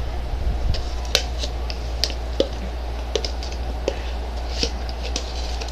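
Homemade slime being squeezed and pulled in the hands, making small irregular clicks and wet pops, a few each second, over a steady low hum.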